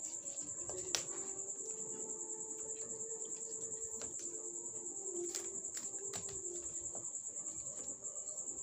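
A cricket trilling steadily at a high pitch, with a few light clicks of stiff plastic craft wire being handled and knotted, the sharpest about a second in.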